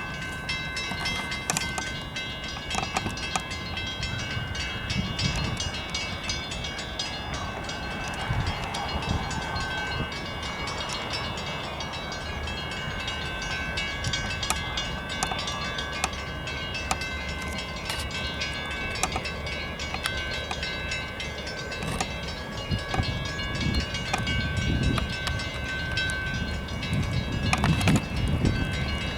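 Passenger train rolling past on the track: a steady rumble, sharp clicks of wheels over the rails, and a steady high-pitched ringing held throughout.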